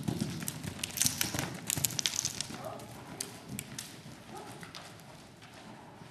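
A horse's hooves thudding on arena sand as it lands from a low crossrail jump and canters on, with a cluster of sharp crackling clicks about one to two seconds in; the hoofbeats fade away over the last few seconds.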